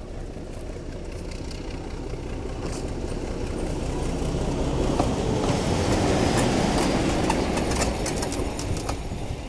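Diesel shunting locomotive running past on the rails, its engine growing louder as it nears and easing slightly near the end, with a few sharp clicks.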